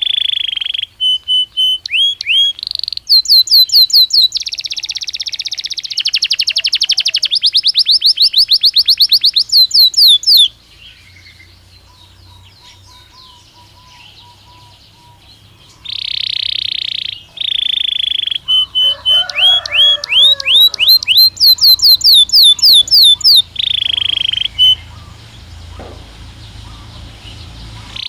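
Belgian canary singing: long phrases of fast repeated notes and rapid rising sweeps. Two phrases are separated by a pause of about five seconds.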